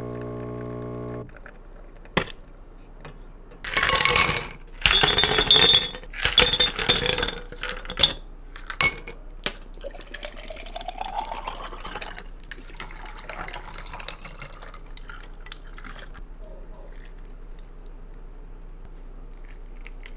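Kitchen sounds: liquid poured and splashing in several loud bursts, then dishes and glass clinking, then a container filling with liquid, its pitch rising as it fills. Light clatter follows.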